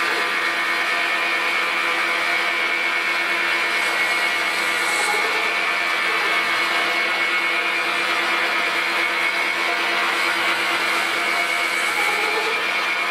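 Weiss WMP280V-F metal lathe running steadily at about 580 rpm during a 45-degree chamfer cut fed by hand from the compound slide. It makes an even machine hum with a steady high whine.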